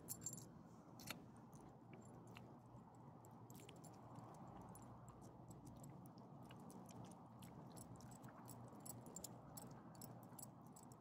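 Faint chewing and licking of a small dog eating soft chicken scraps from a hand: a patter of quiet clicks, thickest near the end, over a low steady hum.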